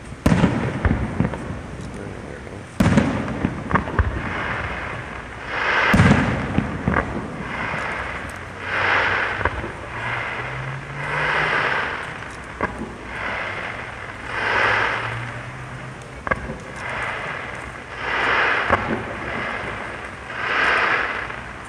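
A fireworks display: three sharp shell bursts in the first six seconds, then a run of crackling swells, one every two seconds or so, with scattered pops.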